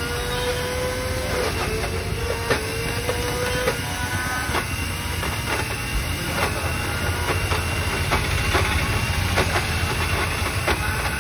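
Electric blender (mixer-grinder) running with a steady whine, ice and ingredients clattering against the jar as a shake is blended.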